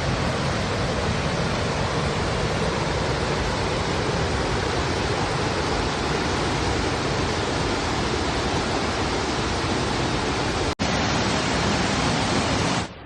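Mountain river below a waterfall rushing loudly and steadily over rocks, with a momentary break about eleven seconds in.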